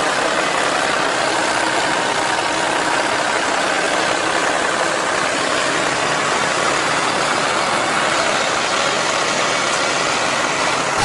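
A motor vehicle's engine running steadily: a dense, even noise with no clear beat or pitch.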